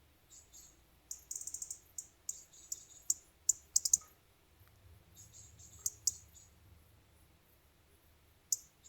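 Clusters of rapid, high-pitched clicks and chirps from a small animal. They come in bursts about a second in, from two to four seconds, around six seconds and once near the end, with quiet between.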